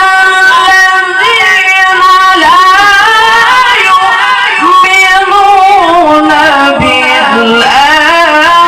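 A male Quran reciter (qari) chanting in the melodic tilawah style: a high, sustained voice with long held notes broken by quick ornamental turns.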